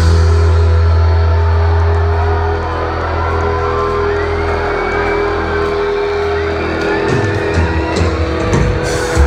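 Live rock band heard from within a hall: a sustained chord rings on with the audience shouting and whooping over it, and the drums come back in near the end.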